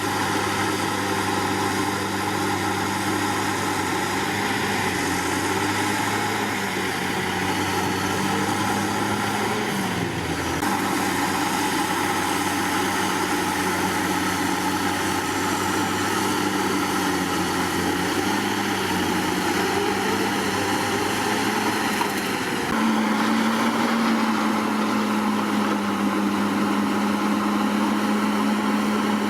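Komatsu D61PX bulldozer's diesel engine running steadily, sagging briefly about ten seconds in, then revving up and running louder under load from about two-thirds of the way through.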